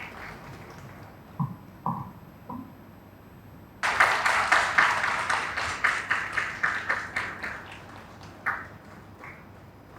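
Audience applauding: a few scattered claps, then a burst of clapping about four seconds in that fades out over the next few seconds, with a last clap or two near the end.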